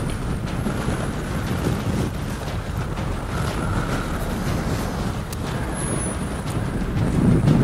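Strong wind buffeting the microphone: a steady low rumble, with a stronger gust near the end.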